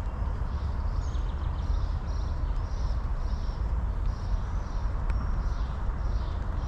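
Footsteps scuffing on brick paving at a walking pace, about two steps a second, over a steady low rumble.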